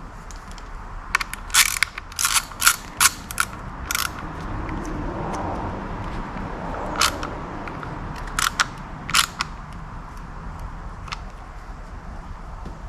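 Sharp clicks and snaps of hand work on outboard ignition wiring, as connectors and tools are handled. There is a quick run of about eight in the first few seconds, a soft rustling scrape, then a few more clicks.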